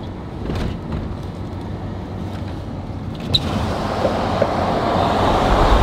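Truck driving, heard from inside the cab: a steady engine and road rumble, with a rushing noise that swells and grows louder from a little past halfway.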